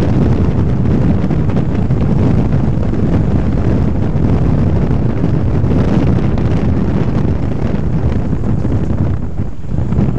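Loud, steady rumble of a car driving along, with heavy wind buffeting on the camera microphone; it eases slightly near the end.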